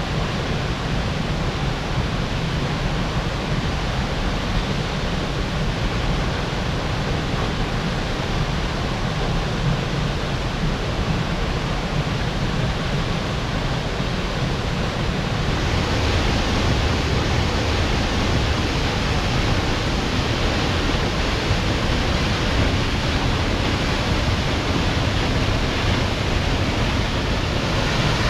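Waterfall rushing: a steady, dense roar of falling water, growing a little louder and hissier about halfway through.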